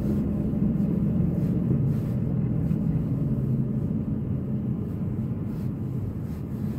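Steady low rumble of road and engine noise inside a moving car's cabin, gradually getting quieter toward the end.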